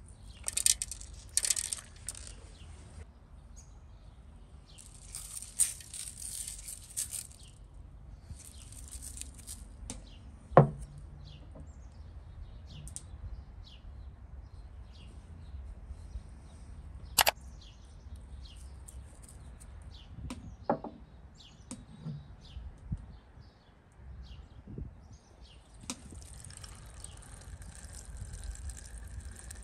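Hands working over sliced vegetables in a large metal cooking pot: short bursts of sprinkling hiss as seasoning is scattered, light scattered ticks and a few sharp knocks. Near the end, water starts pouring into the pot in a steady stream.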